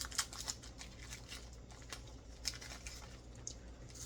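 Plastic snack wrapper crinkling in short rustles and clicks as it is handled, busiest in the first half second and again about two seconds in.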